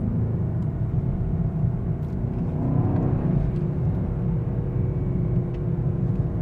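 Mercedes-AMG S63's twin-turbo V8 and road noise heard from inside the cabin while driving at city speed: a steady low rumble, with the engine note rising briefly around the middle.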